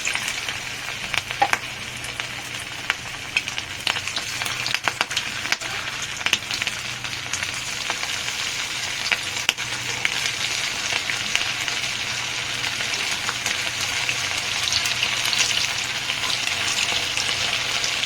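Batter-coated marinated chicken pieces deep-frying in hot oil, the sizzle starting suddenly as they go in. It crackles with many sharp pops over the first several seconds, then settles to a steady sizzle.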